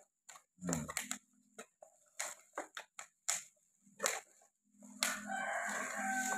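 Small cardboard product box being handled and opened by hand: a string of short clicks, taps and rustles of card and flaps. About five seconds in, a steady low pitched sound comes in underneath and keeps going.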